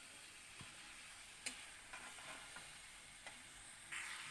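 Metal spatula stirring chicken pieces through thick masala in a metal karahi, giving a few light scrapes and taps against the pan over a faint sizzle. The sizzle grows louder near the end.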